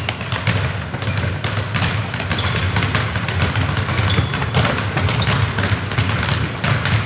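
Many footballs being dribbled and kicked at once on a sports-hall floor: a dense, irregular stream of thuds and taps with no pause.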